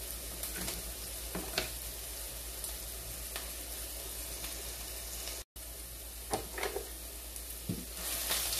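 Chopped onions frying in oil in a stainless steel pot: a steady sizzle with a few light clicks of utensils. The sound drops out for a moment about halfway, and near the end a wooden spoon stirs the onions and the sizzle grows louder.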